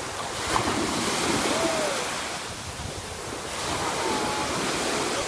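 Small ocean waves breaking and washing into the shallows: a steady surf hiss that swells twice.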